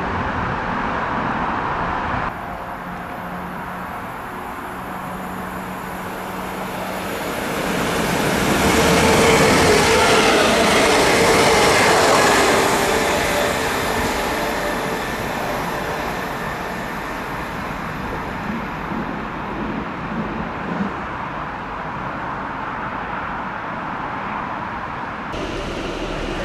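Electric passenger and mail trains running through a station, with steady wheel and track noise. After a brief cut of a Class 390 Pendolino, a Royal Mail Class 325 electric unit comes through, its rumble swelling to a peak about ten seconds in and then fading. Near the end there is a cut to a Class 350 electric unit drawing into the platform.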